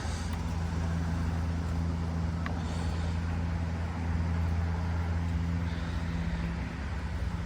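Steady low engine-like hum of a motor vehicle running, easing off near the end, with a light metallic click about two and a half seconds in.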